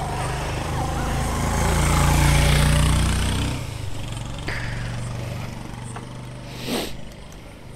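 Motorcycle engine idling steadily. It grows louder over the first couple of seconds and drops back about halfway through, with a brief rushing noise near the end.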